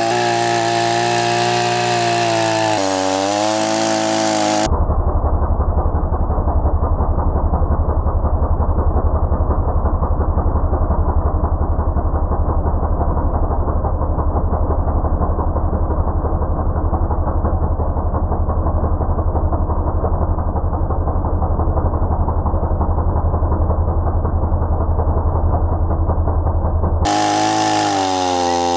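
Music for about the first five seconds. Then an Oakland 45 cc two-stroke chainsaw runs at a steady high speed while cutting through a log, sounding muffled with the high end cut away. The music returns near the end.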